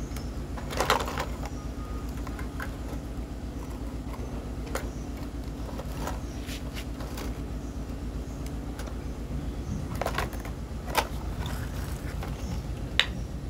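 Occasional light clicks and knocks of hard plastic toy vehicles bumping and tipping, over a steady low hum.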